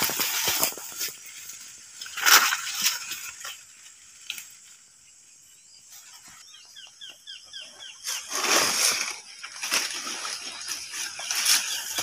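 Dry banana leaves and grass rustling in several loud bursts as they are pushed through. About seven seconds in there is a short run of quick, high chirps.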